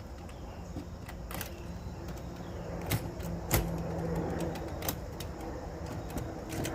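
Chicken coop door being shut and latched: a handful of sharp clicks and knocks spread a second or so apart, over a steady low hum.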